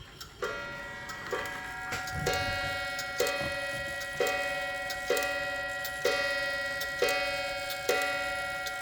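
Waterbury clock striking the hour: its hammer hits the coiled wire gong about once a second, each stroke ringing on under the next. The gong rings freely now that it no longer touches the clock's back wall.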